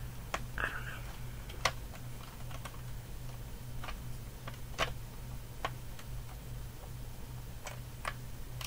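Plastic Lego bricks and Technic pieces being handled and pressed together, giving sharp, scattered clicks at irregular intervals over a steady low hum.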